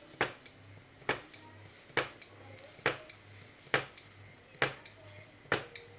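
Small nonstick frying pan on an Electrolux induction hob clicking in a steady rhythm, a sharp click followed by a fainter one about every 0.9 seconds, over a low hum that comes and goes with them. The hob is pulsing its power while the pan refuses to cook.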